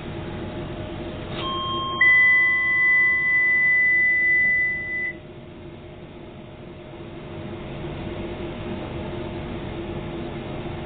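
Electronic beep on board a Docklands Light Railway train: a pair of tones about a second and a half in, then a loud steady high beep held for about three seconds that cuts off sharply. The train's steady running hum goes on underneath.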